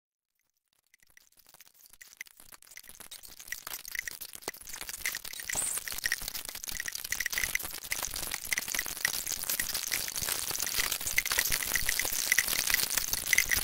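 Electroacoustic music built from flute sounds processed in Kyma: a dense, crackling texture of tiny clicks, breathy hiss and quick high pitched blips. It fades in from silence and grows steadily louder.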